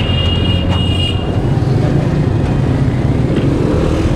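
Street traffic with a motor vehicle engine running steadily close by, and a thin high-pitched tone over it for about the first second.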